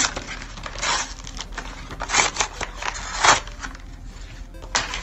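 Stiff plastic blister packaging being pried and torn open by hand, in four sharp noisy bursts, the loudest about three seconds in.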